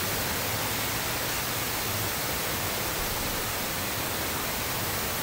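Heavy rain driven sideways by strong wind: a steady, even hiss of downpour.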